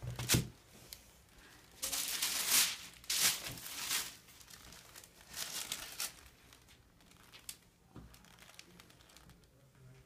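Paper sheet on an examination table crinkling and rustling in several bursts as a seated baby shifts on it, after a short knock near the start as a board book is set down on the table.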